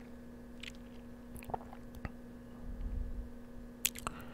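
Scattered soft clicks close to the microphone, over a faint steady hum, with a brief low rumble about three seconds in.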